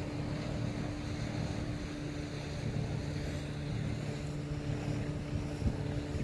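Boat engine running with a steady low hum, over wind and water noise.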